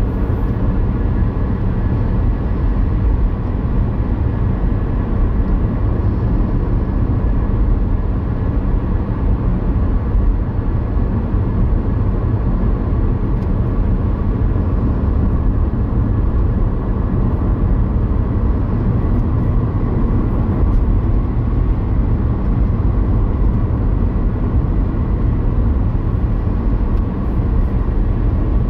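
Car driving at about 50 mph, heard from inside the cabin: steady engine and road-tyre noise.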